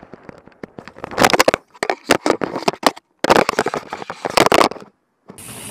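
Loud, distorted crackling and scraping from a camera's microphone being knocked and rubbed against a jacket as its wearer goes down. The sound comes in choppy bursts and cuts out to silence briefly a few times.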